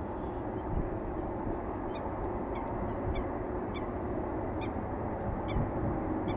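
Low steady rumble of a distant Airbus A350-900 jet airliner on final approach. From about two seconds in, a bird gives a string of short, high calls, about one every second or less.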